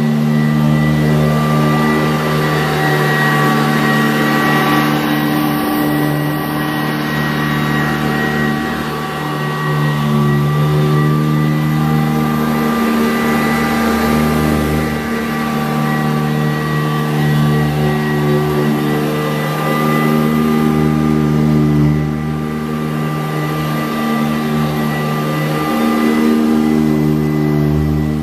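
Sanitaire SC887B-2 commercial upright vacuum cleaner's 7-amp motor running steadily, with a constant high whine over a low hum that swells and dips every few seconds.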